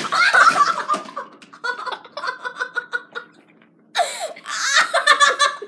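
Kids laughing hard in loud bursts, with a run of rapid ha-ha-ha pulses in the middle and another loud burst of laughter near the end.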